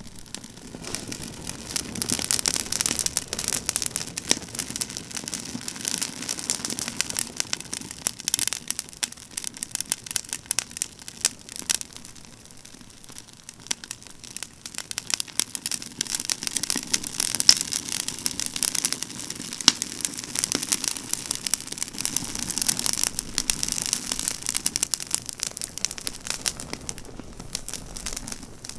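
Pruned pine branches burning in an open wood fire, crackling and popping densely and irregularly. The crackling eases for a few seconds about halfway through, then picks up again.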